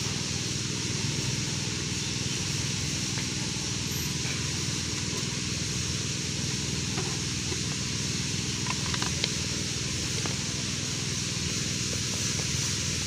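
Steady low hum and hiss of outdoor background noise, with a few faint clicks and rustles of a plastic bait container being handled about two-thirds of the way in.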